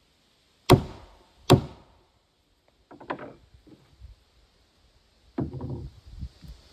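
Two hard mallet blows on a peeled log, about a second in and a second apart, knocking the log into place. They are followed by a few lighter knocks and clunks.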